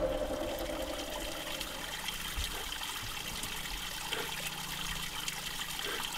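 A drink being poured: a steady trickle of liquid.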